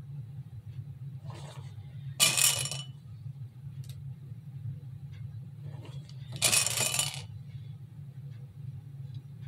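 Small hard decorations clinking and rattling in a glass bowl as they are picked out, in two short bursts about four seconds apart, over a steady low hum.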